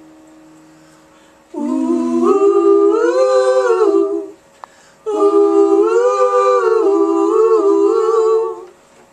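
Wordless a cappella humming in two-part harmony, two long phrases with a short pause between them, as the band's music fades out.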